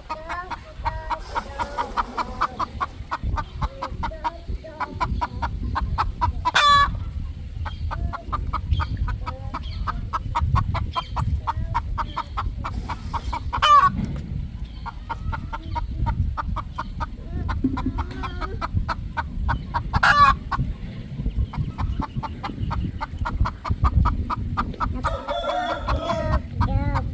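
Roosters clucking continually, with three short, loud, sharp calls spaced about seven seconds apart and a longer call near the end.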